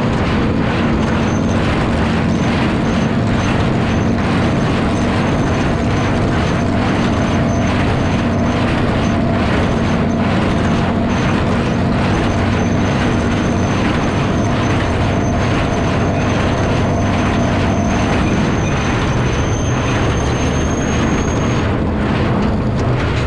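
Farmall 460 tractor running under load with a New Holland 269 square baler working behind it: a steady engine drone with a rhythmic mechanical clatter, and a thin high whine that stops near the end.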